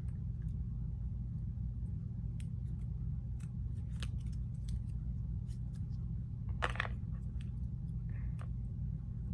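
Faint clicks and rustling from a white iPhone charging cable being handled and uncoiled and its paper wrap pulled off, with one louder rustle about two-thirds of the way in, over a steady low hum.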